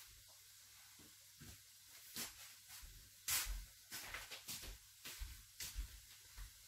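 Faint, irregular light knocks and rustles of someone moving about and handling things, the loudest about three seconds in.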